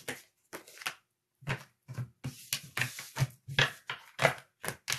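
A deck of tarot cards being shuffled by hand: a run of quick, uneven soft slaps and taps of the cards, coming faster after the first second or so.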